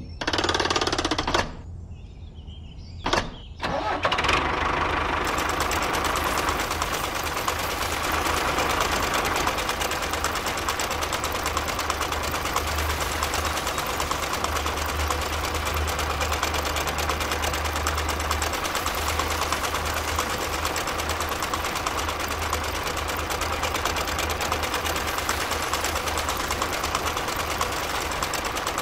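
Small motor of a miniature model tractor starting after a click about three seconds in, then running steadily as the tractor pulls a toy plough through sand.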